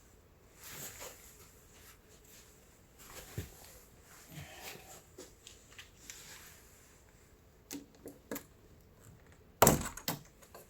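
Scattered small metal clicks and clinks of a door knob's trim and face plate being handled and pried off, with a sharper cluster of knocks near the end.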